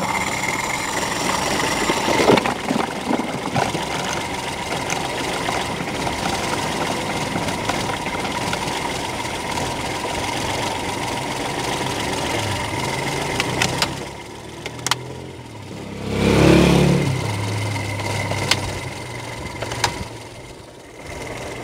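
Perodua Kancil 850's small three-cylinder carburetted engine idling just after a hard cold start, a start that needed the faulty auto-choke flap held shut by hand. The engine runs steadily, drops quieter about 14 s in and surges briefly about 16 s in, with plastic clicks and knocks as the air-filter housing cover is fitted back on.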